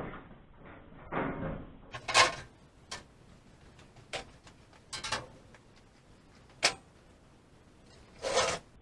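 A series of separate knocks and clatters, about six of them, the loudest about two seconds in, from handling the microwave's parts just after its outer metal cover has been taken off.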